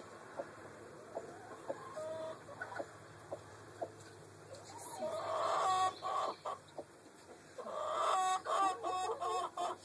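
Chickens clucking, soft at first and louder in the second half, with a quick run of repeated clucks near the end.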